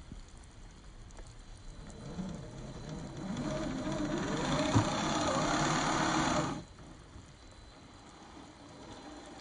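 Electric motor and gear drivetrain of a 1/10 scale RC crawler whining as it is driven, the pitch rising and falling with the throttle, with one sharp knock partway through. The whine stops suddenly about two-thirds of the way in, leaving a quieter background.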